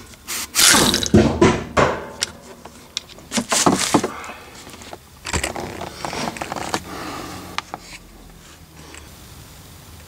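Impact gun run in short bursts to undo the nut on top of a Volvo V70 Nivomat rear shock absorber, the loudest in the first two seconds and again around four seconds in, followed by quieter knocks as the parts are handled.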